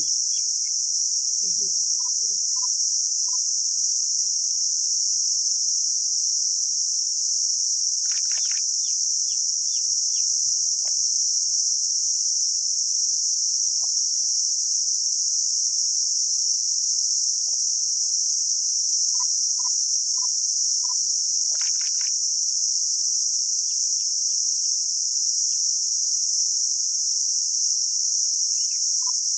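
Continuous high-pitched drone of an insect chorus, steady and unbroken, with a few faint short chirps now and then.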